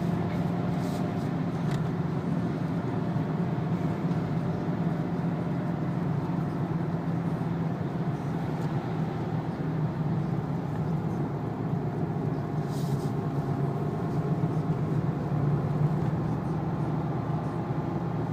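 Renault 2.0-litre turbo diesel running steadily at a gentle pace inside the car's cabin, with tyre and road noise from the wet track. The sound stays even throughout, with no revving.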